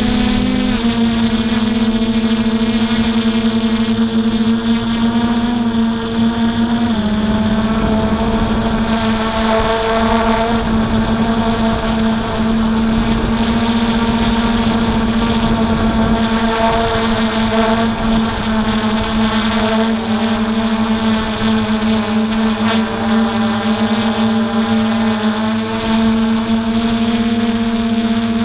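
DJI F450 Flamewheel quadcopter's electric motors and propellers whining steadily in flight, heard from on board, with a small shift in pitch about seven seconds in as the throttle changes.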